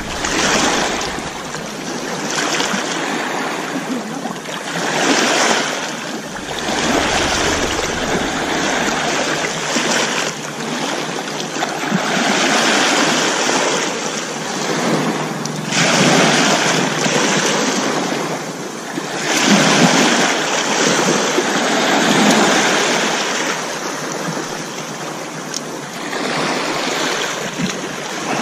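Small sea waves washing in on a pebble shore, the surf swelling and easing every two to three seconds.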